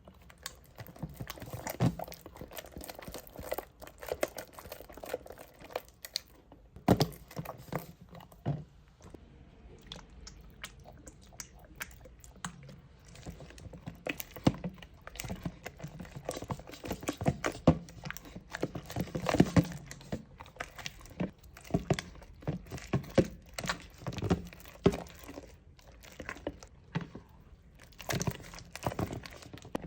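Slime being squished and worked by hand, making irregular sticky clicks, pops and crackles.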